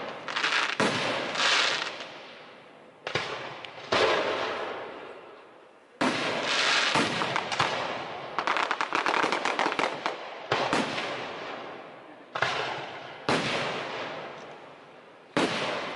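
Aerial firework shells bursting one after another, about eight sharp bangs, each with its echo dying away over a second or two. About eight seconds in there is a stretch of rapid crackling.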